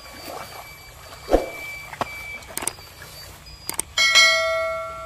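Subscribe-button sound effect: sharp mouse clicks, then about four seconds in a bell-like notification chime that rings on and fades. About a second in there is one loud thump.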